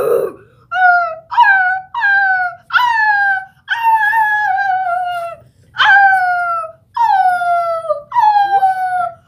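Poodle-type dog howling and whining on the command to speak: about eight drawn-out, high calls, each sliding down in pitch, one of them held longer in the middle. Near the end a second voice rises across the last call.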